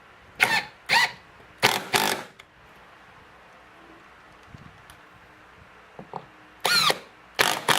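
Short trigger bursts of a power driver with a 10 mm socket, spinning up and down as it runs self-tapping bolts into a plastic wheel gear: four quick bursts, a pause, then two more near the end.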